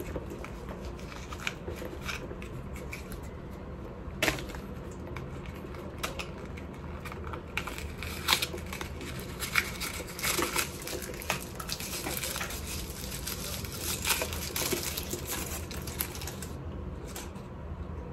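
Hands untying and opening a small cloth pouch: rustling and crinkling of the fabric, with scattered light clicks, as a metal padlock is taken out.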